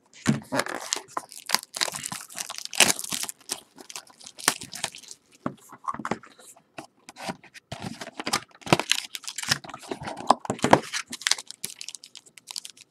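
Plastic wrapping being torn off and crinkled as a sealed trading-card box and pack are opened: irregular crackling and tearing, with several sharper rips.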